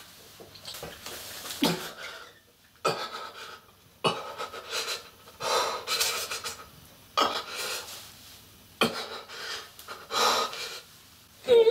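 A man choking and wheezing, with a series of harsh rasping gasps for breath about every one to two seconds.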